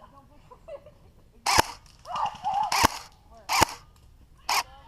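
Airsoft guns firing four single shots, spaced irregularly; each is a sharp crack.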